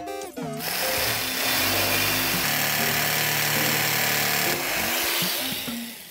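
Corded jigsaw cutting through a square desk leg to shorten it, starting about half a second in, running steadily for about five seconds, and stopping near the end as the piece comes off.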